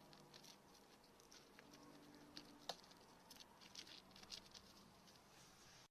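Faint, scattered light clicks and scratches, with one sharper click near the middle, over a faint low hum.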